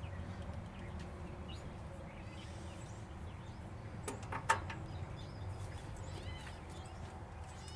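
Faint bird chirps over a low background rumble, with a sharp click about four and a half seconds in.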